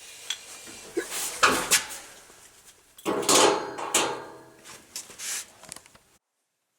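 Metal parts and tools clattering and knocking in several loud bursts during reassembly of a car's front brakes after a pad change, stopping abruptly near the end.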